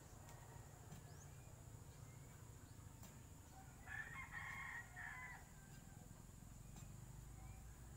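A rooster crowing once, a single call of about a second and a half starting around four seconds in, over a near-quiet background with a few faint ticks.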